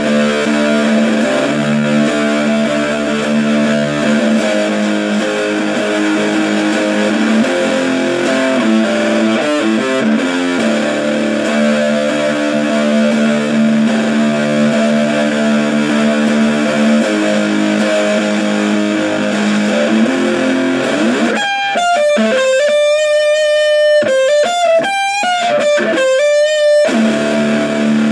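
Electric guitar played through a small homemade 9-volt battery-powered amplifier built into an ammo can, with a muff-style fuzz pedal: heavily fuzzed sustained chords, then about three-quarters of the way through a run of single notes with bends, and chords again near the end.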